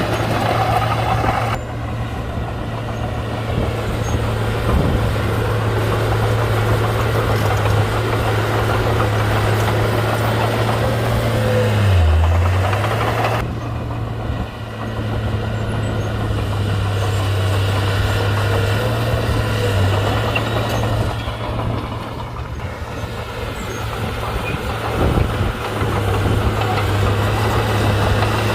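Komatsu D31-P bulldozer's diesel engine running steadily, with a brief dip in the engine note near the middle.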